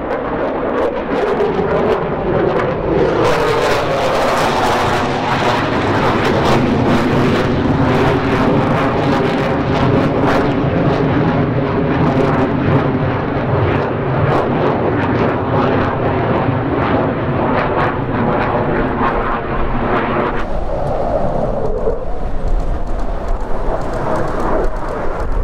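F-15 Eagle fighter's twin jet engines at high power during a low display pass: a loud, crackling roar whose pitch glides as the jet goes by. About 20 seconds in, the crackle fades and a deeper rumble is left.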